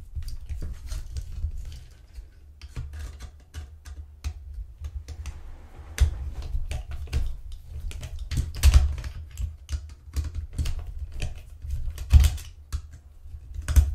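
A small screwdriver turning screws out of the plastic fan housing on a Dirt Devil cordless hand vacuum's motor: quick, irregular clicking and plastic handling noise, with a few louder clacks scattered through.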